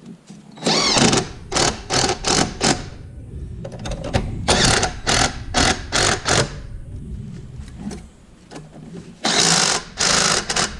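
Aerosol spray can spraying in short bursts. The bursts come in groups of quick spritzes about three a second, with a couple of longer blasts near the end.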